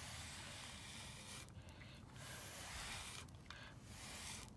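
Wire-bristle slicker brush drawn through a dog's thick coat: faint swishing in about three long strokes with brief pauses between them.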